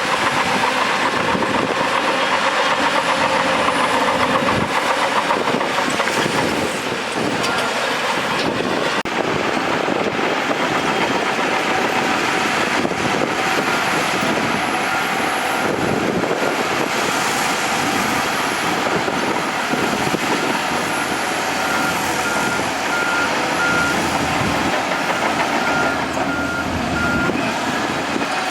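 Bulldozer working: heavy diesel engine running under load with clanking steel tracks. A reversing alarm beeps in a steady repeating pattern through the second half.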